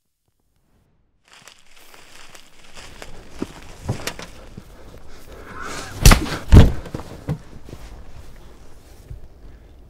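Scuffling movement with a few knocks, then two very loud, heavy thuds about half a second apart in the middle.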